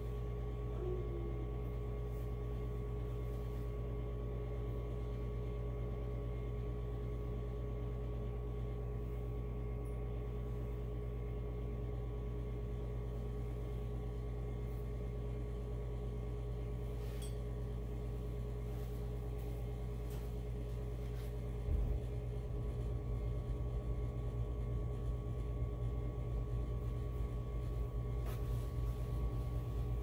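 Steady electric motor hum with several steady tones. From about two-thirds of the way through, an uneven low rumble joins in and the level rises slightly.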